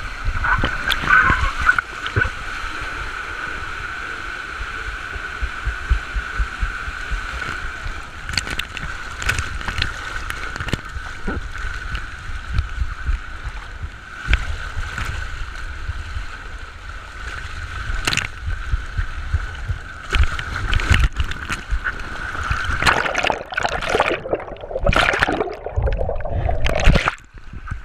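Foam mat sliding down a water-slide flume: rushing water with a steady hiss and frequent sharp knocks as the mat bumps along the slide. Near the end it plunges into the splash pool and the sound drops and turns dull underwater.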